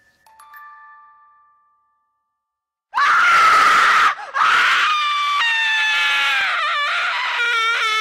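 A faint ringing chime dies away, then after a short silence a loud, high-pitched scream starts about three seconds in. It breaks off briefly, then is held for several seconds, its pitch sagging and then wavering near the end.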